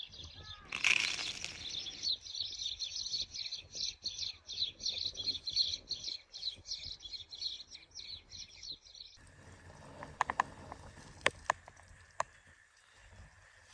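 A songbird singing a fast, steady run of high chirps, about five a second, for about nine seconds. The chirping then stops abruptly, leaving a faint hiss with a few sharp clicks.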